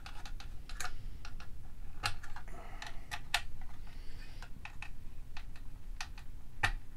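Small screwdriver tightening the screws that hold a solid-state module to the side of a plastic utility case: scattered light clicks and ticks at an uneven pace, with faint scraping of the case being handled.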